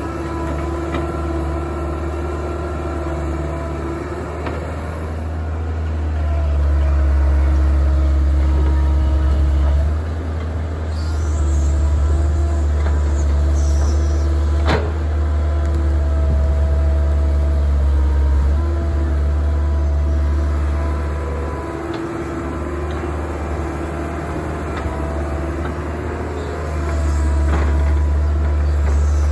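Kobelco hydraulic excavator's diesel engine running under load as it digs, its note swelling and easing as the arm and bucket work, with a whining tone that comes and goes. A single sharp clank about halfway through.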